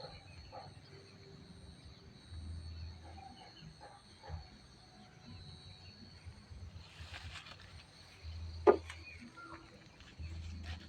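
Insects chirring steadily in a field crop, with scattered rustling and low rumbles of handling, and one sharp click a little before the end.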